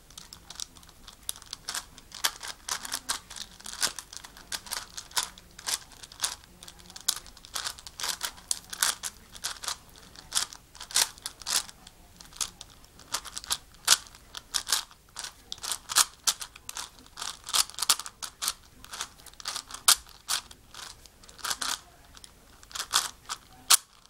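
A 5x5x5 Rubik's cube being turned rapidly by hand: its plastic layers click and clack in quick, irregular strokes, several a second.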